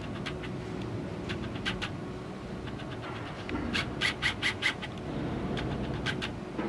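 Steady low machine hum with a faint held tone, overlaid by short high chirps: a few scattered ones, then a quick run of about five some four seconds in, which are the loudest sounds.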